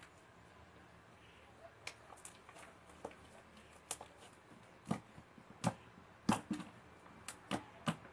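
Fluffy slime being handled, giving irregular sticky clicks and pops that start about two seconds in and grow louder and more frequent over the last few seconds.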